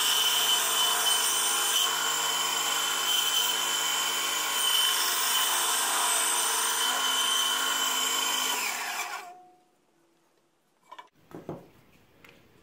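Bandsaw running while a plywood workpiece is fed through the blade, a steady machine sound with a high whine. It cuts off abruptly about nine seconds in, and a few faint knocks follow near the end.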